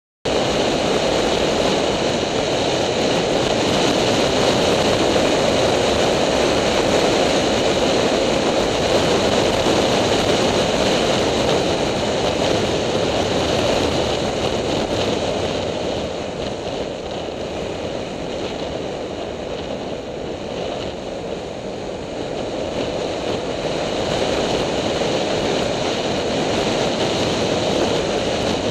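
Wind rushing over the microphone of a motorbike-mounted camera, mixed with the bike's road and engine noise as it rides through traffic. It starts abruptly, eases off for several seconds in the middle as the bike slows, then rises again.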